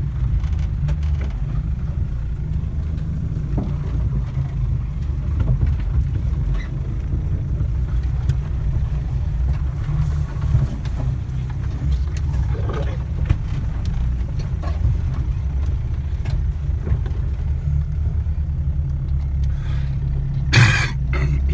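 Off-road vehicle's engine running with a steady low rumble, heard from inside the cab while crawling through brush, with scattered faint clicks and knocks. A short, louder noise stands out near the end.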